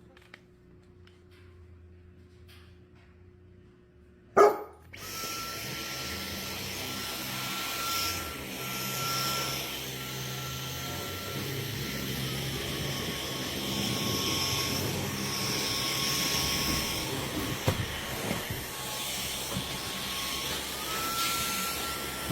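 Vacuum cleaner switched on with a loud click about four seconds in, then running steadily with a high motor whine that drops in pitch around halfway and rises back near the end.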